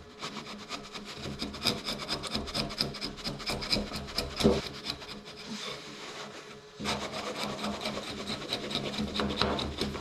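Oak timber being cut or pared by a woodworking tool: a rapid, continuous rasping and scraping that eases briefly a little past the middle, then carries on.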